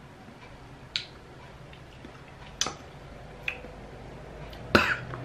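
Soft clicking gulps of a person swallowing pickle brine, about three spread over a few seconds, then a louder sharp sound near the end.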